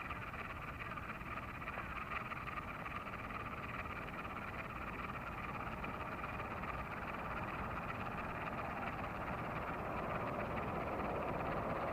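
A steady chorus of frogs calling from flooded fields. A broader rumbling noise grows slowly louder under it in the last few seconds.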